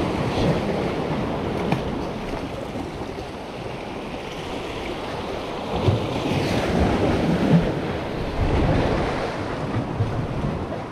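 Sea waves washing in, with wind on the microphone; the wash swells louder about halfway through and again later, with a few small knocks.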